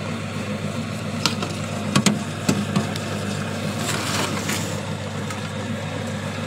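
Cow-dung dewatering machine running with a steady low mechanical hum while it pushes out pressed dung. A few sharp clicks or knocks come between about one and two and a half seconds in.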